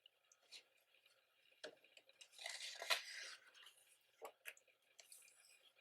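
Glossy pages of a thick photo book being handled and turned: faint taps and rustles, with one louder paper swish of about a second about two and a half seconds in.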